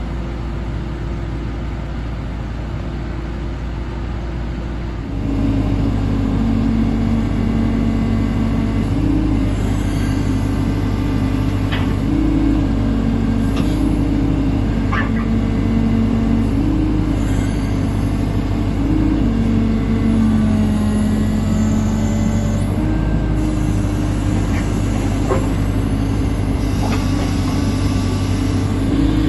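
CAT 312DL tracked excavator's diesel engine running, getting louder about five seconds in, then its note stepping up and down between two pitches every second or two as it comes under changing load, with a few light knocks.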